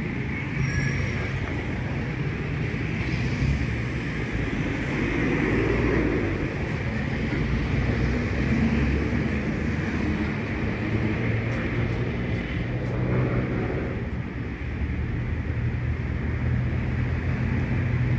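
Road traffic on a city street: motor vehicle engines running and passing, a steady low rumble with no sharp events.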